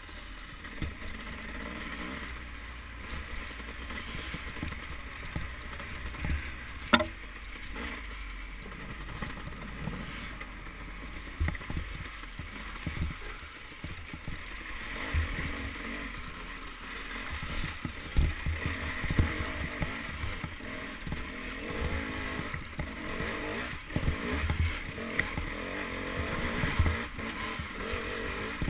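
Dirt bike engine running on the move along a rough trail, heard muffled through the camera housing, with thumps from the bike jolting over bumps and a sharp click about seven seconds in.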